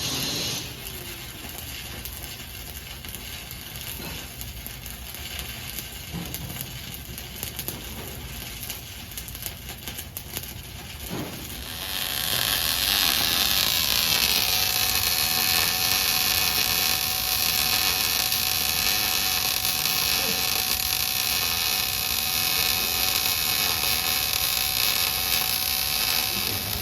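Electric arc welding: an irregular crackle, then about halfway through the arc settles into a louder, steady sizzling buzz.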